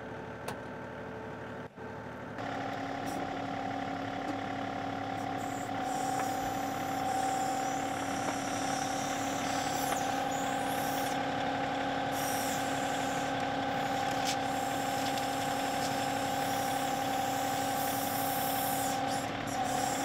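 Diesel engine of a John Deere 2038R compact tractor running steadily while it works its backhoe. It steps up louder about two seconds in and then holds a steady hum.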